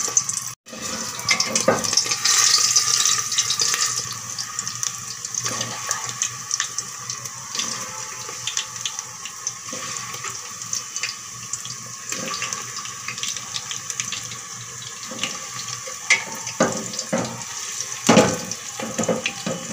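Beef kofta meatballs frying in hot oil in an aluminium pressure cooker: a steady sizzle with scattered small crackles and pops, louder for a moment about two seconds in.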